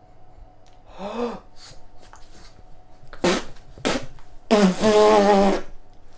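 A pug making snorting, raspy vocal noises close up. First comes a short grunt, then a sharp noisy burst about three seconds in. Near the end there is a longer raspy call lasting about a second.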